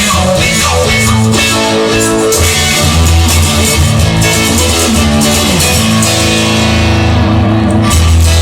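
Instrumental stretch of a rock song: guitars over a steady bass line, with no singing.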